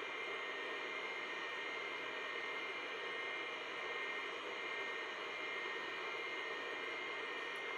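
A 286 PC running idle: steady fan hiss with a faint, even, high whine.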